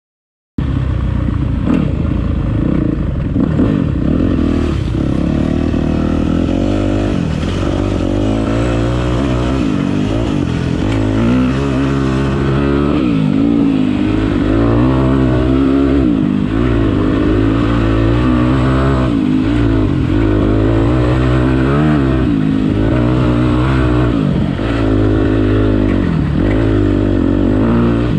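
Dirt bike engine being ridden hard, its revs rising and falling every second or two as the throttle is worked on and off. The sound cuts in suddenly about half a second in.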